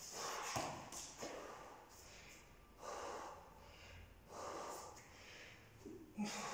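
A man breathing hard from exertion, with about five heavy, gasping breaths spaced a second or so apart. A couple of short knocks come in the first second or so.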